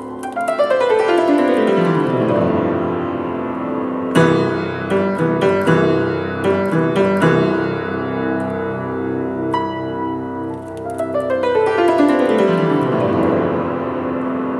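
Piano music: a fast run sweeps down from high to low notes, followed by lively accented chords and quick notes, then a second downward run near the end.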